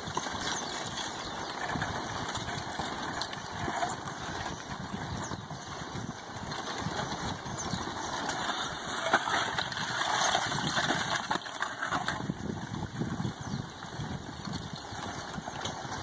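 Advancing a'a lava flow front, a wall of semi-molten basaltic rubble, with a continuous clinking and clanking of rock blocks crumbling and tumbling off its face. One sharper knock about nine seconds in.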